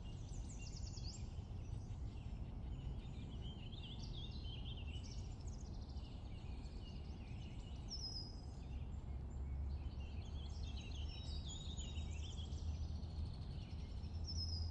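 Faint outdoor birdsong: many short chirps and trills from several small birds, over a low steady rumble.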